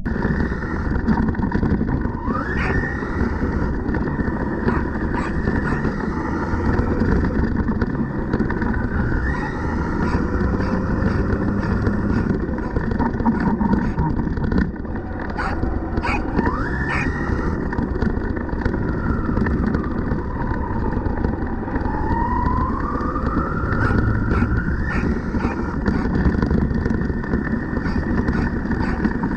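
JLB Cheetah 4WD brushless RC car driving hard on a dirt field, heard from a camera mounted on the car. The motor's whine rises and falls with speed, with sharp rises as it accelerates and a long rising sweep past the middle, over a heavy rumble of tyres on dirt and wind.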